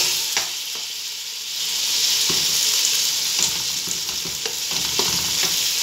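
Sliced tomatoes, green chillies and onions sizzling in hot oil in an aluminium pot, stirred with a metal spoon that scrapes and knocks against the pot every second or so. The tomatoes are cooking down to soften.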